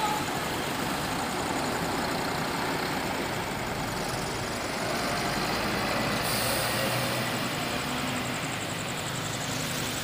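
Scania K410 high-decker bus engine running as the bus drives off, over steady traffic noise, with a brief hiss about six seconds in.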